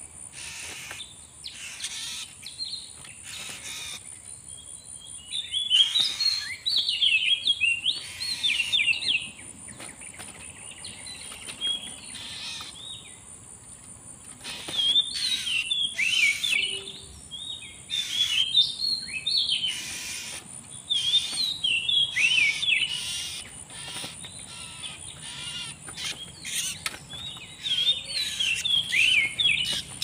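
Oriental magpie-robin (kacer) song: bouts of quick, varied whistles and chattering notes that jump up and down in pitch, coming in spells about a second in, from about 6 to 9 seconds, from 15 to 23 seconds, and again near the end. A steady, thin, high-pitched whine and scattered sharp clicks run underneath.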